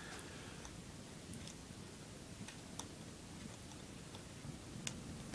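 Faint, scattered small clicks and ticks of a thin tool working a laptop's ribbon-cable connector on the metal keyboard plate, the sharpest click near the end, over quiet room hiss.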